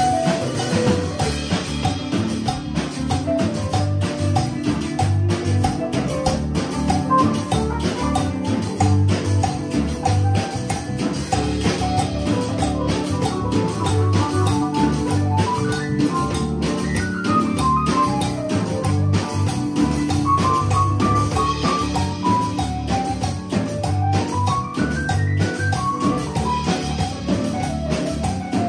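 A small live band playing an instrumental piece. A Yamaha MOXF6 keyboard plays an organ-voiced melody over a drum kit keeping a steady beat, bass guitar and electric guitar.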